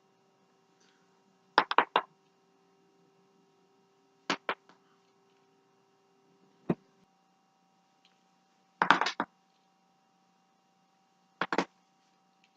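Neck joints cracking in short, sharp pops, in groups: a quick run of several cracks about one and a half seconds in, a pair around four seconds, a single pop near the middle, another quick run around nine seconds and a pair near the end. A faint steady hum sits underneath.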